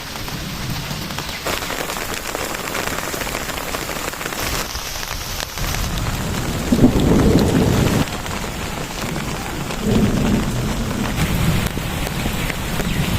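Steady rain falling on surfaces, with two low rumbles of thunder: the louder about halfway through, the second a few seconds later.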